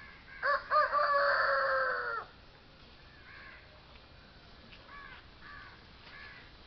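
A rooster crowing once, about half a second in: two short notes, then a long drawn-out note that drops at the end. After it come several fainter, short crow caws.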